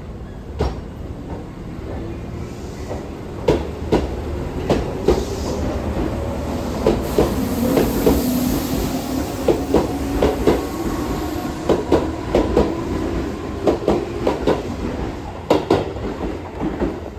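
Tobu 8000 series electric train pulling out of the station: wheels clacking over rail joints again and again as the cars roll by, with the traction motors humming underneath.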